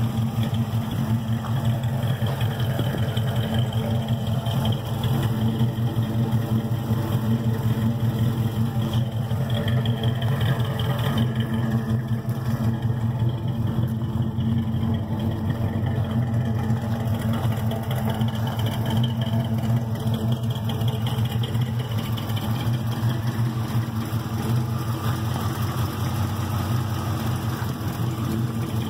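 Old pickup truck's engine idling steadily with a low, even rumble.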